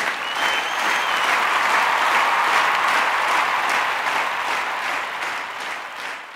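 Applause from many hands clapping together, a dense even patter that tails off near the end.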